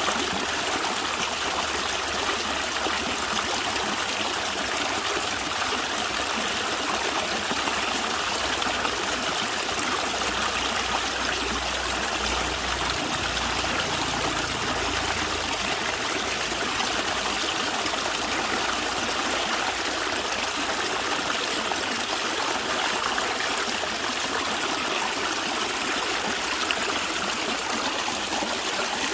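Stream water running and gurgling steadily over stones.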